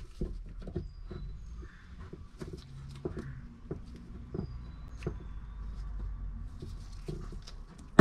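Scattered light metallic clicks, taps and rustling from handling a car's manual clutch pedal assembly while its return spring and pivot pin are being fitted.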